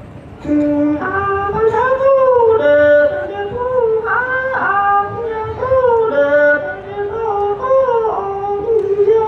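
A man singing Hmong kwv txhiaj sung poetry solo into a microphone, in a high voice with long held notes that bend and waver up and down. It begins about half a second in.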